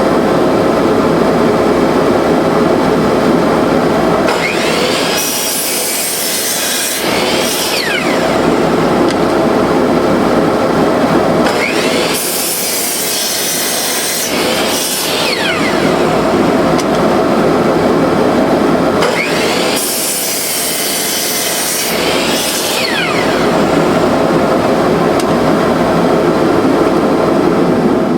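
Cyclone dust collector running steadily while a chop saw cuts through a 4x4 three times, about seven seconds apart: each time the saw motor comes up to speed, the blade cuts through the wood, and the motor winds down in a falling whine.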